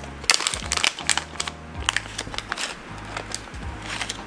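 Packaging being handled as the contents of a boxed LED lighting kit are taken out: crinkling and a run of small sharp clicks and rustles. Background music with a steady bass line plays underneath.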